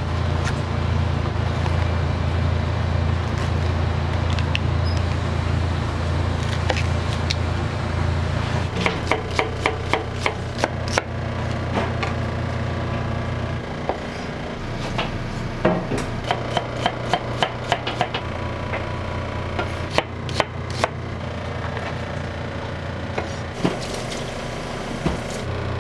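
Knife chopping on a cutting board in several quick runs of sharp, even strokes, about four a second, over a steady low hum.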